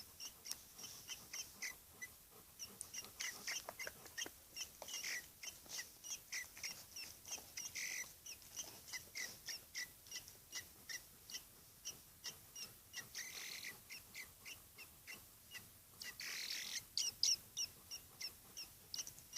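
Young common blackbird chirping: a fast run of short, high chirps, several a second, with a few longer, louder calls about 8, 13 and 17 seconds in.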